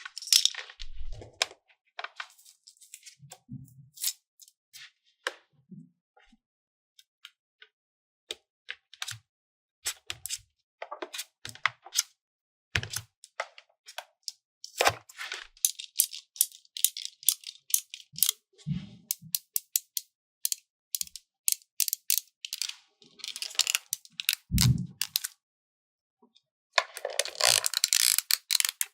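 Small plastic toy pieces being handled and unboxed: irregular clicks, taps and rattles, with a few dull thuds and a dense rustling burst near the end.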